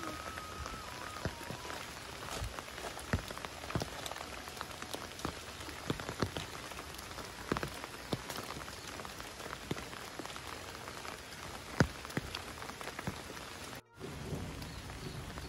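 Steady rain falling on foliage and tiled roofs, an even hiss with many scattered sharp drop hits and drips. The sound drops out briefly near the end.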